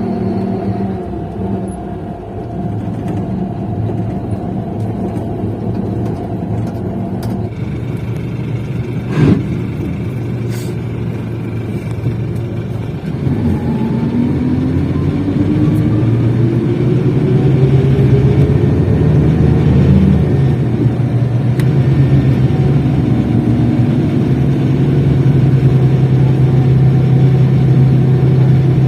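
Scania K380 bus engine running, with one sharp knock about nine seconds in. From about thirteen seconds the pitch rises as the bus accelerates, then it settles into a louder steady drone.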